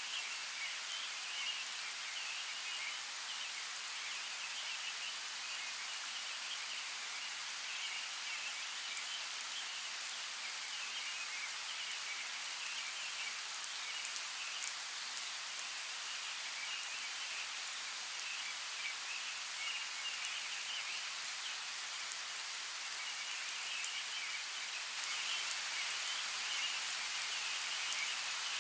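Light rain falling steadily on forest foliage, a soft even hiss with scattered drops ticking sharply. Behind it a high chattering chorus of small calls comes and goes, growing a little louder near the end.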